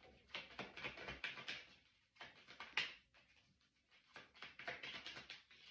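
A deck of tarot cards being shuffled by hand: faint, irregular quick clicks and flicks of card edges, with a couple of brief pauses.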